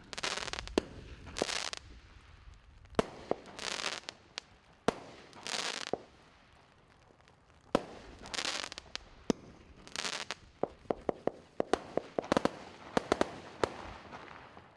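Washington Wonder Category 2 firework cake firing a volley of shots: sharp launch reports, several followed by about a second of hissing tails, with a quick run of crackling pops near the end as the cake finishes.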